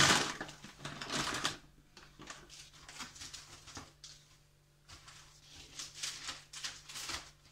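Newspaper sheets rustling and crinkling as they are handled and pulled apart, in irregular bursts. The loudest bursts come in the first second and a half.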